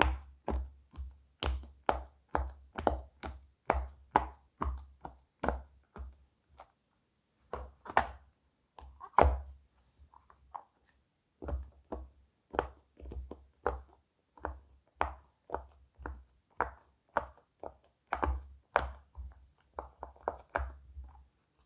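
Bubbles of a silicone pop-it fidget toy being pressed one after another, a run of soft pops and taps at about two to three a second, each with a dull thud, broken by a couple of short pauses.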